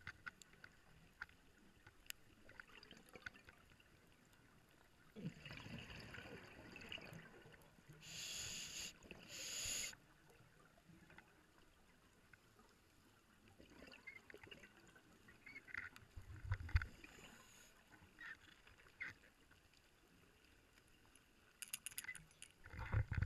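Scuba breathing through a regulator heard underwater: irregular gurgling bursts of bubbles and two short hissing breaths, with faint scattered clicks between them.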